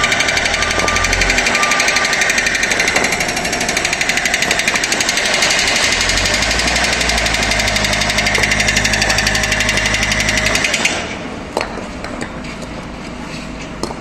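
Backhoe loader at work: a rapid, steady mechanical hammering over its diesel engine, which stops about eleven seconds in, leaving the engine running on its own at a lower level.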